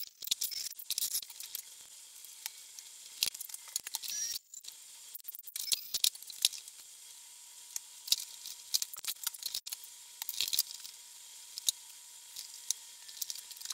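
A string of light clicks and ticks over a faint hiss from tool work on a zero-turn mower's sheet-metal control panel, as a hole is cut in it with a step drill bit for a switch.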